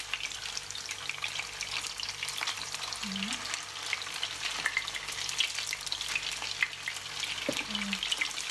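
Chicken cutlets frying in oil in a nonstick pan: a steady sizzle thick with small crackling pops as the cutlets are turned over.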